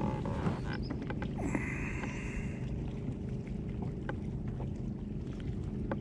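Steady low hum of a small battery-powered Bubble Box bait-bucket aerator, with a few light knocks in the first couple of seconds and a brief hiss about a second and a half in, as a trout is handled beside a kayak.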